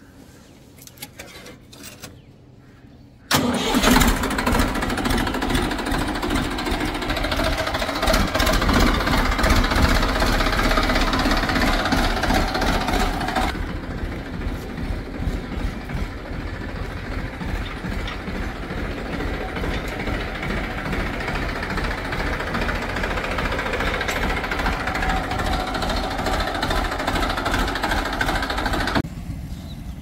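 Massey Ferguson tractor's diesel engine starting on the key about three seconds in. It runs loud and fast for about ten seconds, then settles into a steadier, quieter run. The level drops away just before the end.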